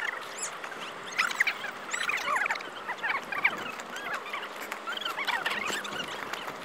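Small birds chirping and twittering, many short overlapping calls.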